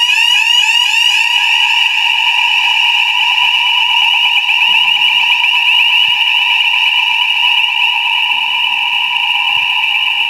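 Fire alarm sounding continuously: a loud, high, rapidly warbling tone, its quick repeating sweeps sharp at first and blurring into a steadier warble after a couple of seconds.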